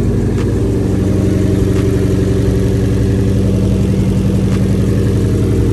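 Freshly rebuilt Hyundai Genesis Coupe four-cylinder engine idling steadily on its first run, with the serpentine belt not yet fitted.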